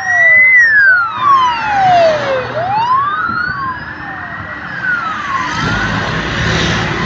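Police vehicle sirens wailing, with several slow rising-and-falling sweeps overlapping. They fade after about four to five seconds, and the drone of many small motorcycle engines builds as the column of motorcycles passes close by.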